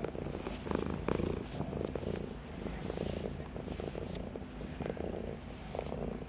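Domestic cat purring steadily, close to the microphone.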